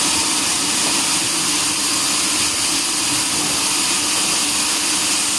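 Sawmill saw and machinery running steadily, giving a loud, even hiss with a faint low hum underneath.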